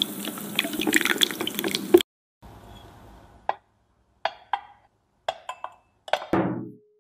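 A silicone spatula stirring a runny chocolate mixture in a pan, a wet, continuous sound for about two seconds. Then thick chocolate batter pours into a ceramic bowl, landing in a series of short wet plops, the fullest one near the end.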